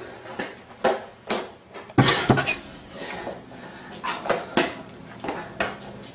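A run of irregular sharp knocks and clatters of hard objects, the loudest two close together about two seconds in.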